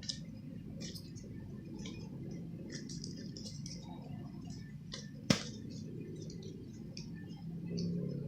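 Homemade slime being handled and squeezed, giving many small, soft wet clicks, with one sharp click about five seconds in.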